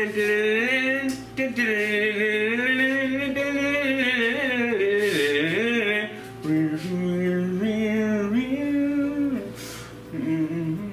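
A man singing the show's theme jingle over backing music, in long held notes that slide up and down in pitch.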